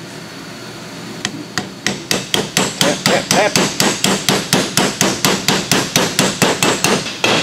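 Hammer tapping on a steel bearing race used as a driver, seating a metal-clad pinion seal into the differential case's nose. Two separate taps come first, then steady quick strikes at about four a second, each with a short metallic ring.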